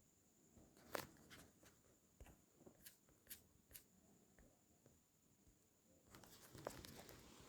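Near silence, broken by a few faint, scattered clicks and taps, with one sharper click about a second in.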